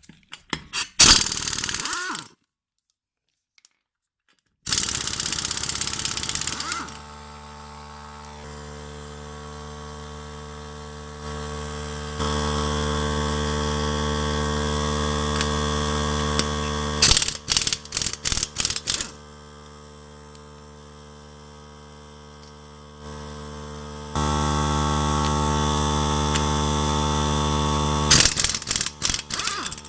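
A 3-gallon oil-less pancake air compressor's motor runs steadily while a 1/2-inch pneumatic impact wrench hammers on wheel lug nuts. The wrench runs in longer pulls and then in clusters of short trigger bursts, several in quick succession, twice. The compressor is recharging as the gun draws air.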